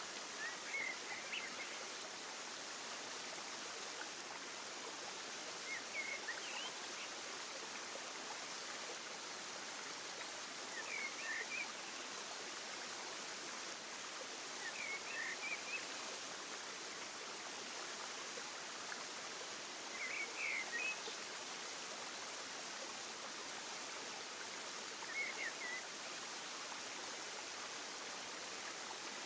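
Steady rushing of flowing water, with a short burst of bird chirps about every five seconds.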